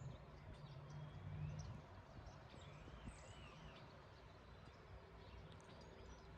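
Faint bird chirps, a few short rising-and-falling calls in the middle, over a low hum that fades out about two seconds in.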